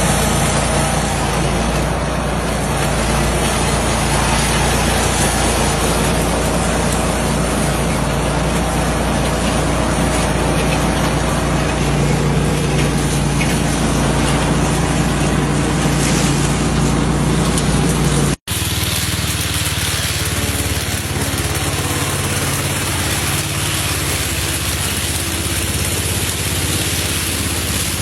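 Lawn mower engine running steadily. About two-thirds of the way through the sound cuts off for an instant and resumes with a thinner, less bassy tone.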